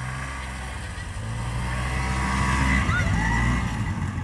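Snowmobile engine running steadily as the machine drives past, getting louder as it comes near and easing slightly near the end.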